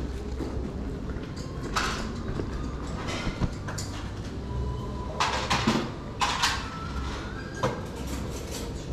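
Fabric rustling and scraping as a large insulated delivery backpack is handled up against the microphone, in several short scratchy bursts over a low steady rumble.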